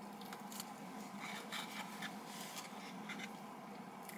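Faint scattered clicks and small rustles of someone eating sushi with her fingers, over a low steady hum.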